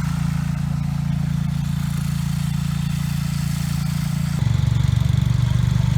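Garden tractor engine running steadily. A little over four seconds in, its sound changes abruptly and gets louder, with a fast pulsing beat.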